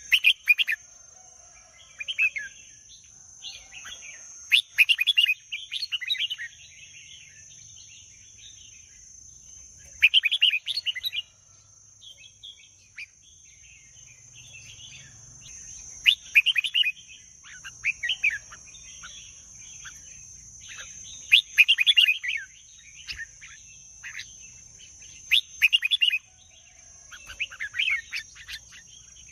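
Red-whiskered bulbul singing: short, quick warbled phrases repeated every few seconds, over a steady high-pitched whine.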